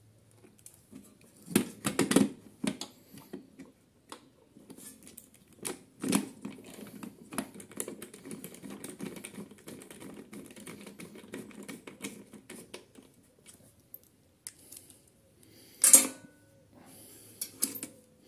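Small metal clicks and rattles of a hand screwdriver driving in the mounting screws of a new Briggs & Stratton InStart electric starter motor, with a long run of rapid clicking through the middle and one sharp metallic clack near the end.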